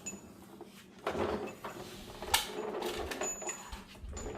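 Small carburetor parts being handled and shifted on a work surface, with scraping and rattling and one sharp click about two seconds in.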